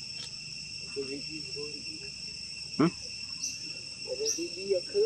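Steady high-pitched drone of an insect chorus, crickets or cicadas, with a few short chirps over it. About three seconds in, one loud brief call drops sharply in pitch.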